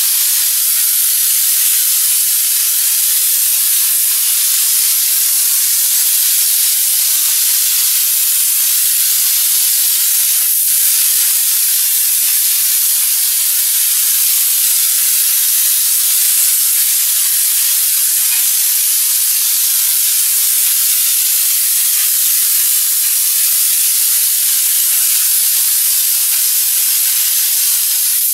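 An air-fed drywall texture hopper gun spraying popcorn ceiling texture: a loud, steady hiss of compressed air blowing the mud out of the nozzle, held without a break.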